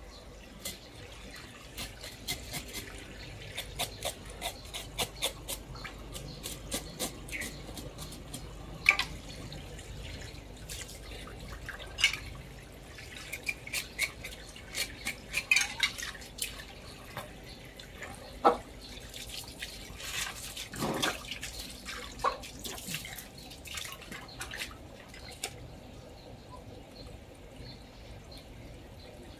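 Knife cutting and scraping through pieces of a large bighead carp on a wooden chopping block, in irregular clicks and taps, with water dripping.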